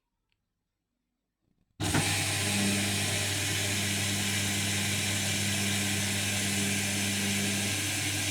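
Indesit washing machine suddenly starting to move water partway into its rinse: a loud, steady rush of water over a low electrical hum, with a steady higher tone joining and dropping away near the end.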